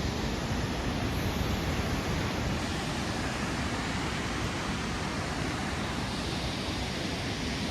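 Steady rushing of a waterfall's water.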